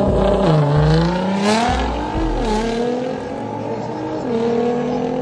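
Nissan GT-R's twin-turbo V6 launching hard off the drag-strip start line and accelerating away. The engine pitch climbs and drops sharply at two quick upshifts in the first three seconds, then settles into a steadier, lower drone as the car pulls away down the strip.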